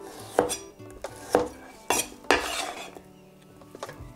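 Chinese cleaver (cai dao) knocking on a wooden cutting board four times while slicing fish, the last knock followed by a brief scrape of the blade across the board.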